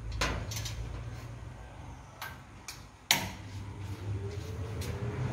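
Light metallic clicks and knocks from a stainless-steel drying cabinet as skewers of smoked herring are hung inside and the cabinet is closed, the sharpest knock about three seconds in, over a low steady hum.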